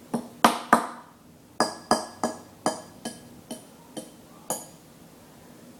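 A spoon clinking against a glass dish about eleven times in a row, each strike sharp with a short ring. The first three are the loudest, and the strikes come at uneven intervals.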